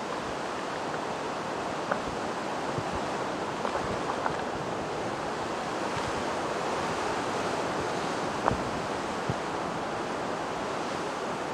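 Sea waves washing against the shore with wind, a steady rush, with a few faint clicks or knocks, the clearest about eight and a half seconds in.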